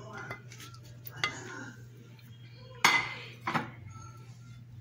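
Kitchen dishware clinking and knocking as a spatula scrapes grated vegetables off a plate into a glass bowl: a few separate knocks, the loudest and sharpest about three seconds in, over a faint steady hum.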